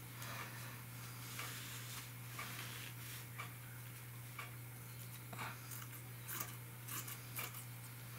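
Scissors snipping through mosquito netting: short crisp clicks, roughly one a second and unevenly spaced, over a steady low hum.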